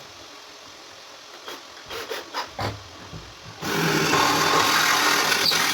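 A few light knocks, then about three and a half seconds in a power tool starts abruptly and runs steadily with a loud rubbing noise, as if working metal.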